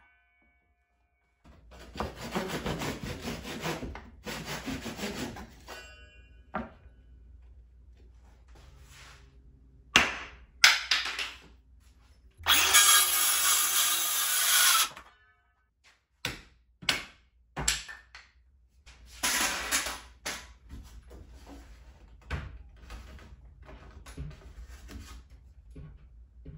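Cordless circular saw cutting through wood in three runs of a few seconds each, with a few sharp knocks in between.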